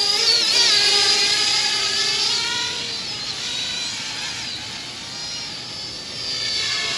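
Parrot Bebop 2 quadcopter's motors and propellers whining, the pitch wavering a little; the sound is loudest at first, fades through the middle and grows again near the end.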